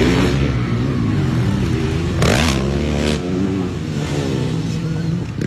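Motocross dirt bike engines revving hard as the bikes race round a dirt track, the engine pitch rising and falling with the throttle. A brief loud rush of noise comes about two seconds in.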